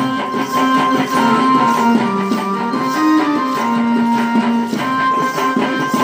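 Loud music with a melody over a steady beat, played for a kolatam stick dance.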